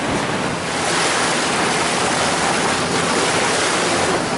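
Wind buffeting the microphone and sea water rushing past the hull of a moving tour boat, with the boat's engine running steadily underneath.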